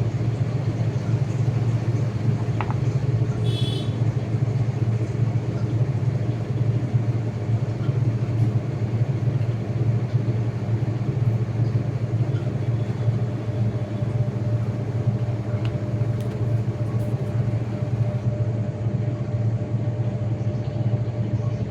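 IFB washing machine's drum spinning with a load of sheets: a steady, even low hum with no knocking or squeaking, the machine running normally now that its earlier squeak during spin has been repaired.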